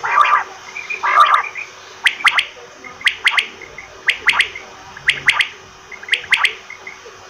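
Male common quail (batair) calling: two rougher, lower notes, then its sharp three-note 'wet-my-lips' song repeated about once a second, five times.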